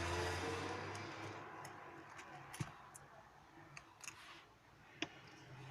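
Scattered light clicks and taps as small tools and parts of an opened tablet are handled, over a faint hiss that fades in the first second or so.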